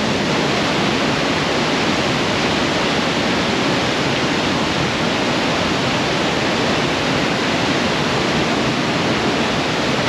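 Steady rush of a river's whitewater cascade pouring over rocks, churning right beside the microphone.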